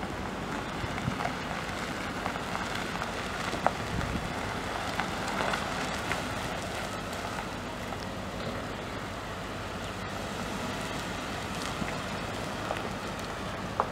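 A 2012 Ford F-150's 5.0-litre V8 idling steadily under an even hiss, with a few faint clicks.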